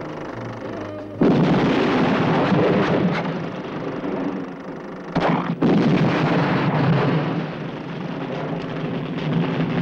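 Film soundtrack: light music, cut off about a second in by a sudden loud blast that rumbles on for several seconds. A second blast hits about five and a half seconds in and rumbles on as well.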